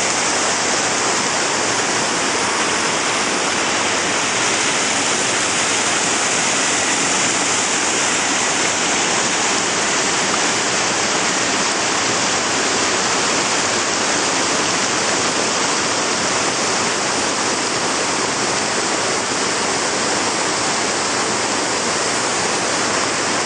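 Small waterfall cascading over bare rock into a river: a steady, unbroken rush of falling water.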